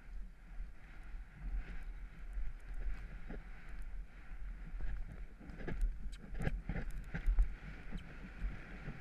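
A horse galloping cross-country over turf: thudding hoofbeats under steady wind buffeting on the rider-mounted camera's microphone, with a run of louder thuds near the middle.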